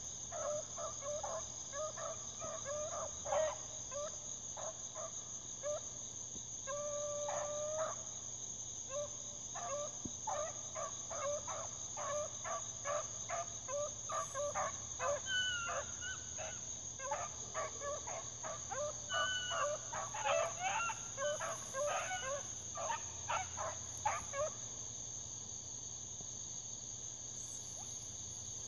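A pack of rabbit hounds baying and yelping while running a rabbit. Many short cries overlap, with one long drawn-out bay several seconds in; the cries crowd together in the middle and stop a few seconds before the end. Insects buzz steadily and high underneath.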